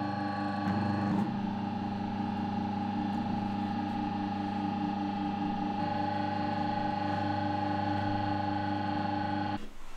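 Electric auger extruder, a slow-juicer-type machine, running with a steady motor hum while it presses rice-cake dough out through its nozzle as a long strand for tteokbokki. The hum cuts off suddenly just before the end.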